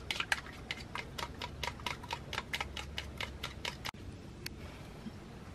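Eggs being beaten in a small bowl with a wooden utensil, which clicks against the bowl about five times a second. The clicking stops abruptly a little before four seconds in.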